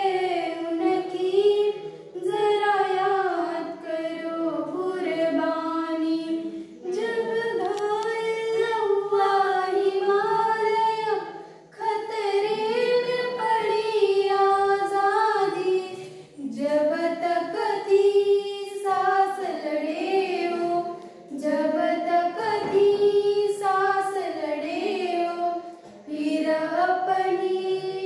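Young girls singing a song unaccompanied, in phrases of a few seconds with short breaks for breath between them.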